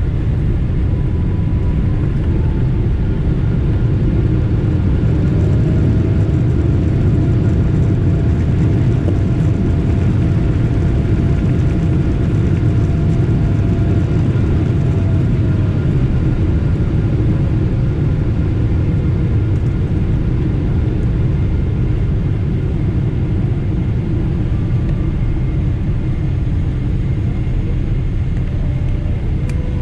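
Steady low rumble inside the cabin of a Boeing 777 rolling out on the runway after landing, its GE90 engines at idle and the wheels running on the pavement. A faint whine rises in pitch about five seconds in, holds, and falls away again a little past the middle.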